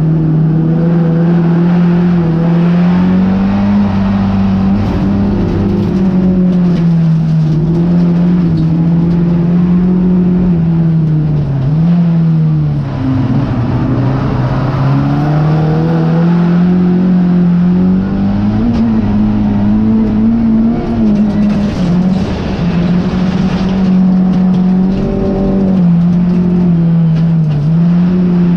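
Folkrace car's engine, heard from inside the stripped, roll-caged cabin, running hard at high revs during a race on a dirt track. The engine pitch holds mostly steady with small drops and rises as the throttle is lifted and reapplied, sinking lower about twelve to fourteen seconds in before climbing again. Tyre and gravel noise from the loose surface runs underneath and grows louder about twenty-two seconds in.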